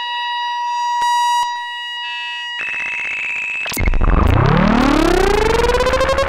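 Korg MS-20 analog synthesizer playing a self-generating patch through delay and reverb. A steady high tone with a couple of clicks jumps higher about two and a half seconds in. Just before four seconds, a loud low note swoops up in pitch and levels off into a held tone.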